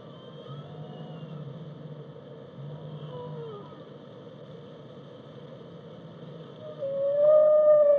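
Whale song: faint gliding moans over a steady low rumble, then a loud, drawn-out moan that rises slightly in pitch about seven seconds in.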